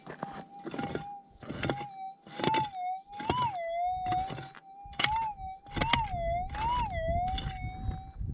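Minelab gold detector's steady threshold hum, which swells briefly in pitch several times. Over it, a pick chops into hard stony ground about once a second.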